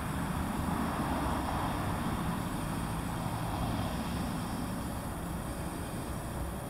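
Steady low rumble of a vehicle engine running, swelling slightly about a second in.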